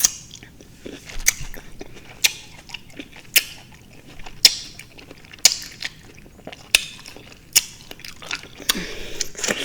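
Close-up wet chewing of juicy fruit: sharp, moist mouth smacks about once a second.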